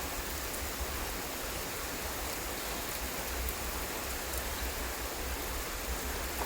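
Steady rain falling, an even hiss with a fluctuating low rumble underneath.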